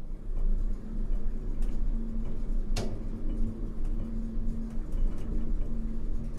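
Old elevator car moving: a steady low rumble with a faint hum and light rattling, with one sharp clack about three seconds in.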